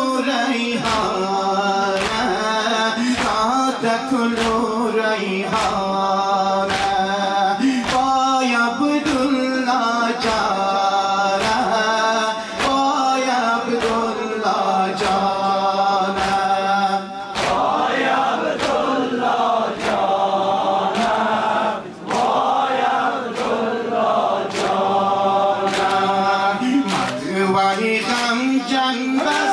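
Shia noha (Muharram lament) chanted by men: a lead reciter sings the verses at a microphone and the seated mourners sing along together. Their chest-beating (matam) falls in unison in time with the chant, a sharp slap about one and a half times a second.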